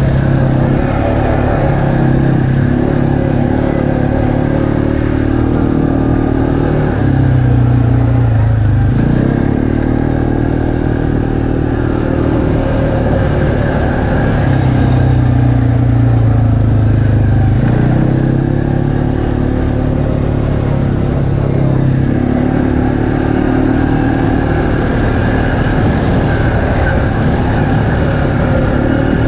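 ATV's single-cylinder four-stroke engine running under way, its pitch rising and falling several times as the throttle is opened and eased.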